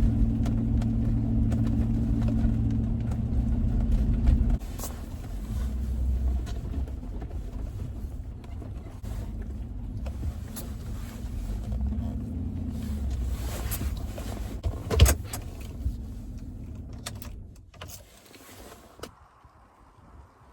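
A motor vehicle running, a steady low hum for about the first four and a half seconds, then a lower, uneven rumble with scattered knocks and one sharp knock about fifteen seconds in, fading out near the end.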